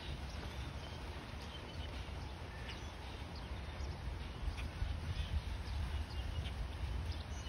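Outdoor ambience: a steady low rumble with scattered short, high chirps through it.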